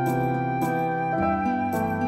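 Gentle instrumental background music: held melody notes over soft chords, with a light tapping beat.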